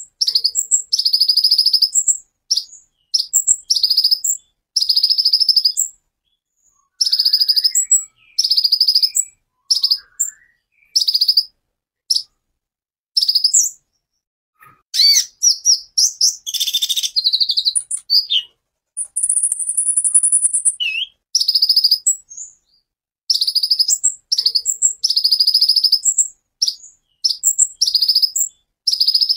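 Van Hasselt's sunbird (kolibri ninja) singing: bursts of rapid, high-pitched trills, each about half a second to a second long, repeated with short pauses. Near the middle come a few varied sweeping notes and one held high whistle, then the trill bursts return.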